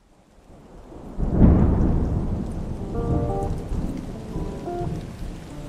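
Rain falling steadily, with a roll of thunder about a second in that swells and slowly dies away. A few soft, held notes of music come in about halfway through.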